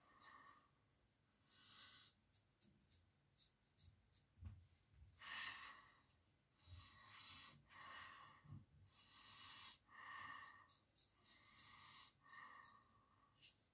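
Quiet scraping of a double-edge safety razor through lathered stubble on the upper lip, in a run of short strokes with small pauses between, and breathing through the nose.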